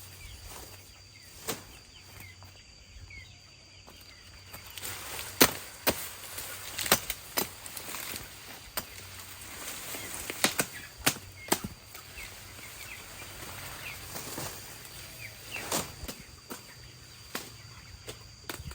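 Irregular sharp chopping strikes, some much louder than others, as feed is cut up by hand.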